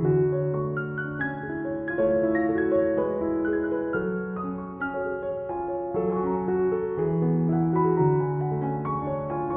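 Background piano music: slow, sustained notes and chords changing about once a second.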